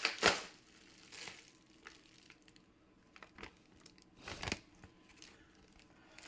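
Package wrapping crinkling and tearing as a mailed package is opened by hand, in a handful of short rustles, the loudest near the start and another about four seconds in.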